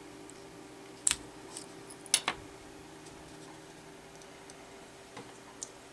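Small sharp plastic clicks as the plastic retainer clip of an HP Compaq laptop keycap is pried off the back of the key with a precision screwdriver. There is one click about a second in, then two close together about two seconds in, with a few faint ticks later.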